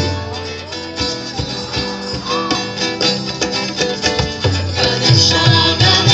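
Live devotional song: acoustic guitar strumming, joined about four and a half seconds in by a hand drum beating a steady rhythm, several strokes a second, as the music grows louder.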